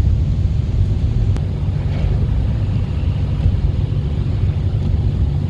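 Steady low rumble of a car driving on a snowy highway, heard from inside the cabin: engine and tyre-on-road noise with no change in pace.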